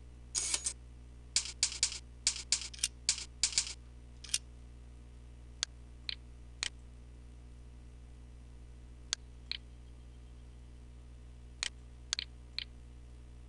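Computer keyboard typing in a quick run of about ten keystrokes, then scattered clicks in ones and pairs, typical of a mouse, over a steady low hum.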